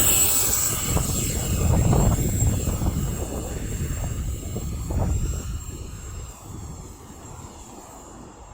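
Radio-controlled model airplane flying, its motor giving a thin steady high whine, under gusty wind rumbling on the microphone that eases off about six seconds in.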